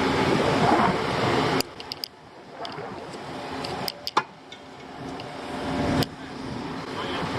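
A heavy vehicle engine running steadily, cutting off abruptly under two seconds in. Then quieter, with a few sharp clicks and knocks and engine noise building again toward about six seconds.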